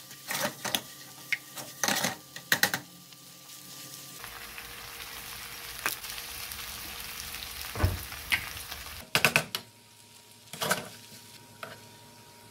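Sausage slices and vegetables sizzling in a frying pan, stirred with a plastic spatula that scrapes and knocks against the pan several times in the first few seconds. A steady frying hiss follows, then a few more knocks near the end.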